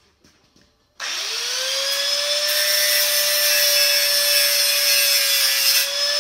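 A corded power tool switches on about a second in: its motor whine rises quickly to a steady pitch and runs on loud, with a harsh hiss, as it works the metal blade of a snow shovel.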